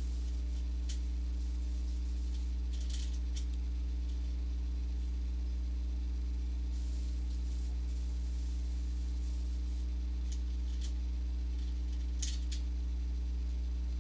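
Steady low electrical hum with several overtones, over which a black pen faintly scratches a few short strokes on cardstock as letters are written and gone over again.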